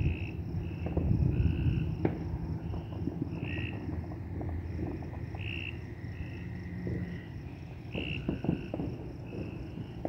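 Night chorus of calling insects and frogs: short high chirps repeating every second or so, with a steady high trill in stretches. Under it runs a constant low rumble with a few faint pops.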